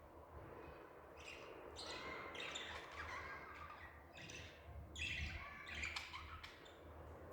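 Budgerigars chirping in quick runs of short calls, starting about a second in.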